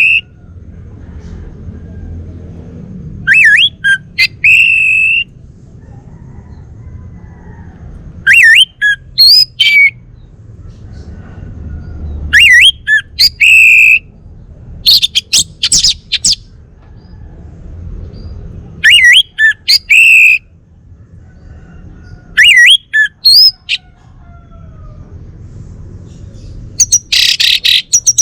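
Male orange-headed thrush (Bali anis merah) singing: about seven loud phrases of quick whistled notes that slide up and down, a few seconds apart, some ending in a harsh scratchy burst. A faint low rumble lies between the phrases.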